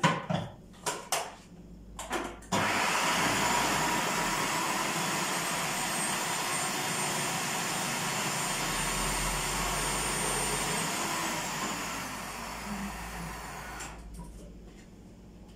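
A few sharp knocks, then a food processor motor runs steadily for about nine seconds, grinding fava beans with onion and garlic into ta'miya paste. It winds down and dies away near the end.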